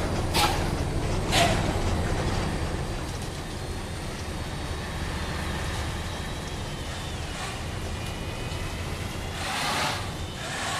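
Hino RK bus's diesel engine rumbling, the sound fading over the first few seconds. Two short bursts of noise come near the start, and faint high steady tones appear later.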